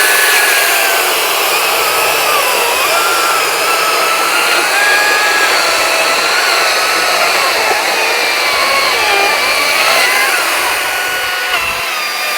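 Makita 40V XGT brushless battery chainsaw cutting through a log. Its high motor-and-chain whine wavers and dips as the load on the chain changes.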